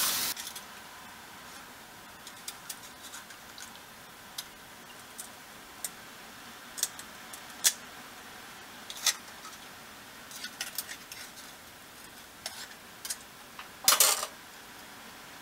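Tap water running into the sink cuts off right at the start; then scattered light clicks and knocks as horseneck clam shells are handled in a steel sink, with a short clatter near the end.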